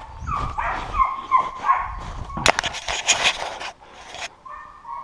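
Hunting dog yelping and whining: several short falling yelps, a louder outburst in the middle, and a drawn-out whine near the end.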